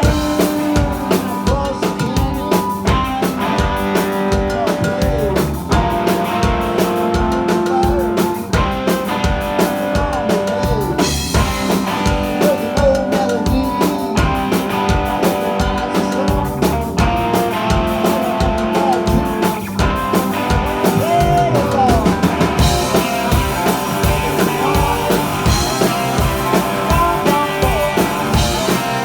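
Rock band playing live: a steady, driving drum beat with electric guitar and bass.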